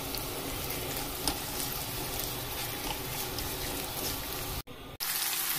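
Sliced onion and brown sugar sizzling gently in olive oil in a frying pan over low heat, caramelising. A steady hiss that cuts out for a moment near the end and comes back slightly louder.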